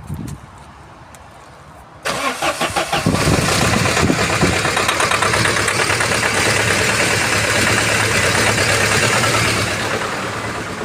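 Diesel car engine started: a second or so of cranking, then it catches and runs steadily, its speed easing down a little near the end.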